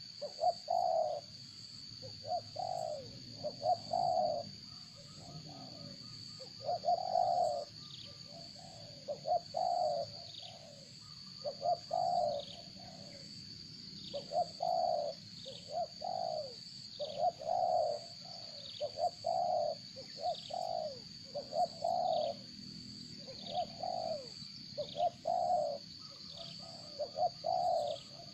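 Birds calling: a low cooing call repeated over and over, about one to two notes a second, with short falling high chirps in between and a steady high whine.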